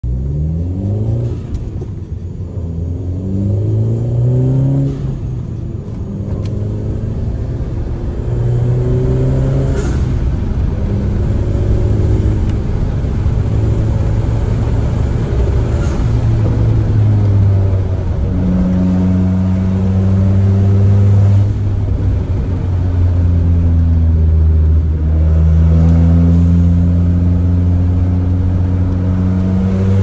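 Turbocharged Volkswagen four-cylinder with an ECS Tuning downpipe and the exhaust cutout open, heard from inside the cabin, pulling up through the gears: the note climbs and drops at each shift several times, with short sharp hisses from the Forge diverter valve venting around a couple of the shifts. In the second half it settles into a steady, louder drone under load.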